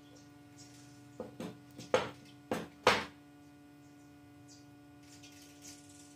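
Metal parts of a water-bike pedal drive clinking and knocking as they are handled: about six sharp, ringing knocks in quick succession between one and three seconds in, the loudest two near the end of the run, as the gear shaft comes out of the bearing housing and the housing is set down on the steel workbench. A steady low hum runs underneath.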